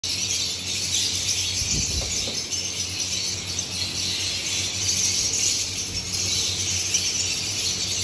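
Dense, steady chatter of many lovebirds kept in aviary cages, a continuous high twittering wash, over a steady low hum.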